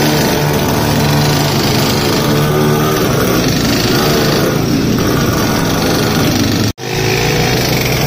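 Small engines of mini motorbikes running steadily as they ride along, with a brief dropout about seven seconds in.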